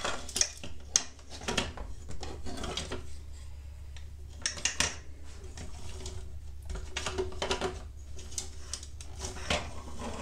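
Hard plastic parts of a 1/16-scale model compactor being handled and fitted together, giving irregular clicks, taps and light rattles.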